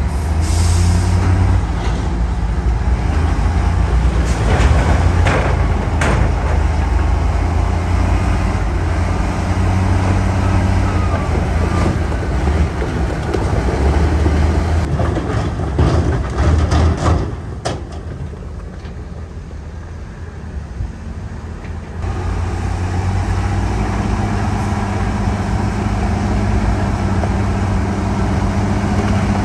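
Heavy diesel engines of dump trucks and a bulldozer running under load, with a few sharp knocks. The engine noise drops back for several seconds past the middle, then picks up again.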